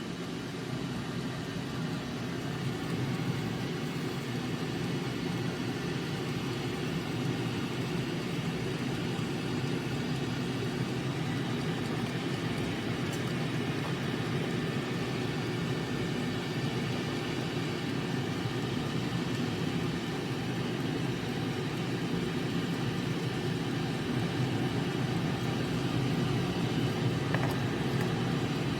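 Air fryer oven's fan running with a steady whirring hum.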